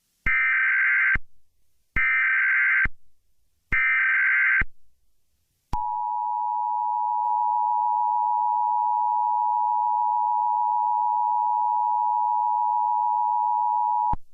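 Emergency Alert System SAME header: three short bursts of warbling digital data tones, each under a second, followed by the EAS two-tone attention signal, a steady paired tone held for about eight seconds before cutting off sharply.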